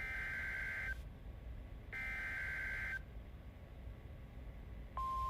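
Emergency Alert System SAME header bursts from a NOAA Weather Radio broadcast: the buzzy two-tone digital data burst, heard twice, each about a second long and two seconds apart. Near the end the steady single-pitch 1050 Hz weather radio warning alarm tone begins, the signal that a warning message follows.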